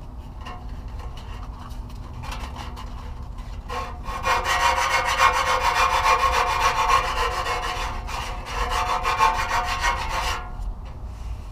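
Hand-filing the edge of a round light-mounting hole in a truck bumper: light scraping strokes at first, then from about four seconds in a run of rapid, harder back-and-forth strokes that stops about a second before the end. The filing enlarges the hole so the light will fit.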